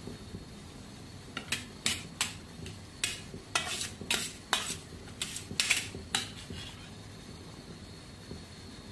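Steel ladle clinking and scraping against a stainless steel pot while stirring sambar, a quick run of about a dozen strikes in the middle, then only a steady low background.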